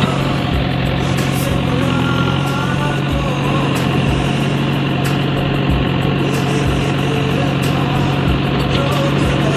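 JCB backhoe loader's diesel engine running steadily as the machine works.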